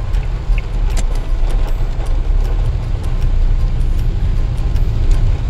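Inside a car's cabin in slow traffic in the rain: a steady low rumble of engine and road noise, with scattered sharp ticks of raindrops hitting the car.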